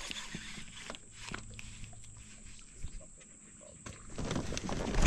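Faint scattered ticks and handling sounds from a baitcasting rod and reel while a topwater frog lure is worked. Near the end a rising rush of noise builds into a sudden loud burst.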